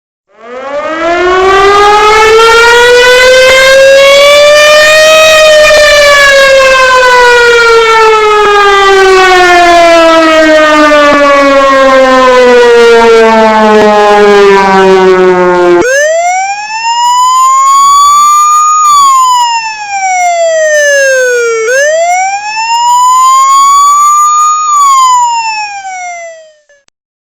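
Loud siren ringtones. First a siren with a rich tone winds up in pitch over about five seconds, then slowly falls. About sixteen seconds in it cuts to a second, purer siren tone that rises and falls twice before stopping.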